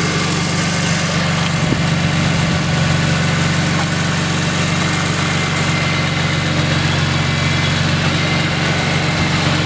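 2006 BMW M3's inline-six engine, fitted with a custom Magnaflow straight-pipe exhaust, idling steadily with no revs.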